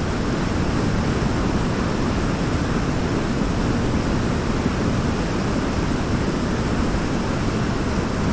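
River water pouring over a large rock in a small waterfall, a steady rushing noise heaviest in the low end.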